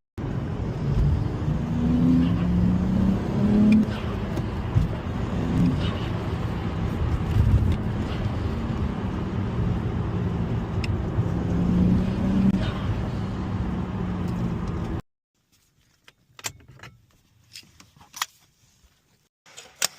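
BMW N54 twin-turbo straight-six car being driven: engine note and road rumble, rising and falling in pitch as it accelerates. The sound cuts off suddenly about three-quarters of the way through, leaving only a few faint clicks and taps.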